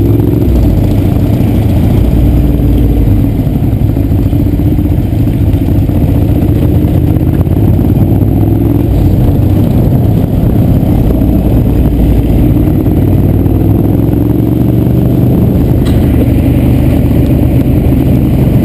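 Motorcycle engine running at road speed, heard from on board the bike, its pitch drifting slightly up and down with the throttle, over a heavy low rumble of wind.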